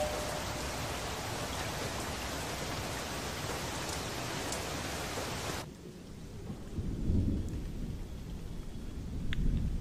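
Steady rain hiss that cuts off suddenly about five and a half seconds in, followed by low rumbles of thunder about a second later and again near the end.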